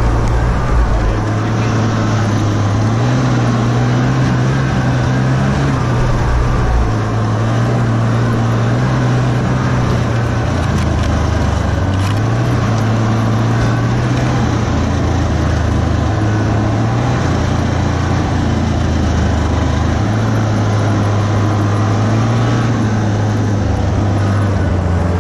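Snowmobile engine running, heard from on board the moving machine, its pitch stepping up and down several times as the throttle changes, over a steady rush of track and wind noise.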